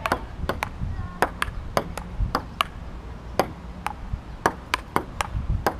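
Table tennis rally: the ball clicking off the table and the paddles in quick succession, often in close pairs of bounce and hit, about three clicks a second.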